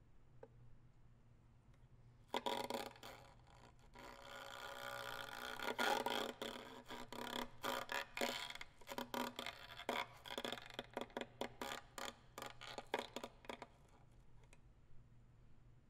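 Solo violin playing contemporary music, quiet at first. About two seconds in comes a short scratchy bowed gesture, then a bowed tone swells up, broken by a run of irregular short, sharp strokes that thin out and stop a couple of seconds before the end.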